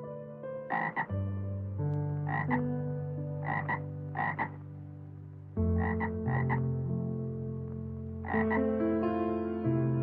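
About ten short, sharp animal calls, some single and some in quick pairs, over soft background music of long held chords.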